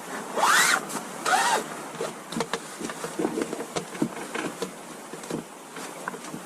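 Camp gear being handled at close range. Two louder scraping sweeps come about half a second and a second and a half in, then a run of small clicks, knocks and rustles.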